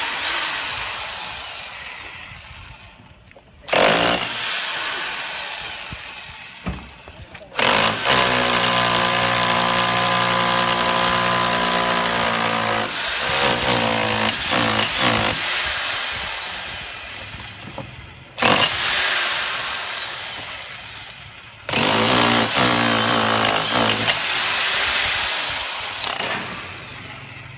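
Classic CLA-5426 1010 W rotary hammer drill boring into a thick masonry wall in about five bursts. Each burst starts suddenly and winds down with a falling whine as the trigger is let go. The longest run, around eight to thirteen seconds in, holds a steady motor hum.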